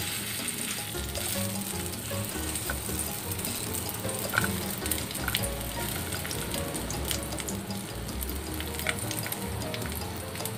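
Garlic sizzling in a little oil in a nonstick wok while it is stirred with a silicone spatula, with a few light clicks and scrapes of the spatula against the pan.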